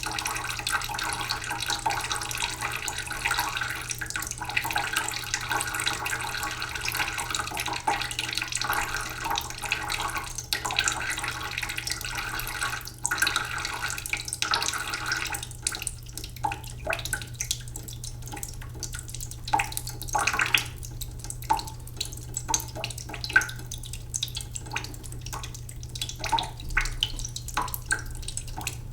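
Sink tap running slowly into a cooking pot, the water stream splashing and bubbling into the filling pot. About halfway through the steady stream gives way to separate drips and small splashes.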